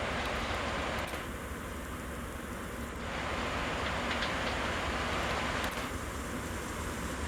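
Regional passenger train arriving at a station: a steady rumble of wheels on the track with a few faint clicks.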